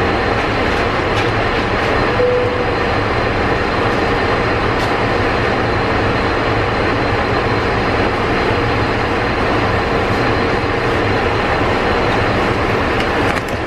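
Airliner cabin noise in the galley: a steady, even rush of air with a low hum underneath, unchanging throughout.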